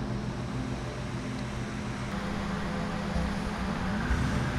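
Motorboat engine running at low speed as the boat comes in: a steady low hum that rises a little in pitch near the end.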